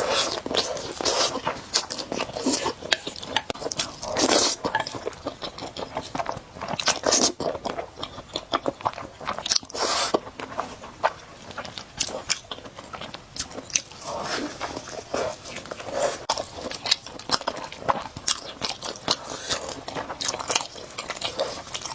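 Close-miked eating of spicy noodles: wet chewing and mouth clicks throughout, with louder noisy bursts, likely slurps of noodles, about four, seven and ten seconds in.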